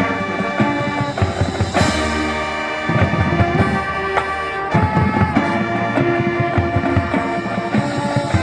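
Marching band playing: brass and winds hold sustained chords over a steady drumline, with a cymbal crash about two seconds in.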